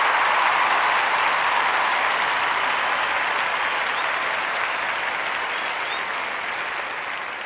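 Audience applauding, steadily fading away.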